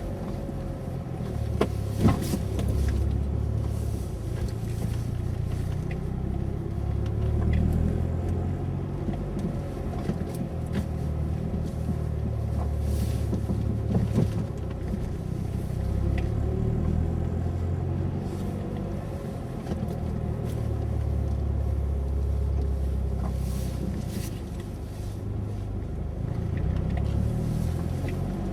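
Mitsubishi Lancer Evolution being driven: a steady low engine and road rumble that swells and eases, with a few short sharp knocks about 2 seconds and 14 seconds in.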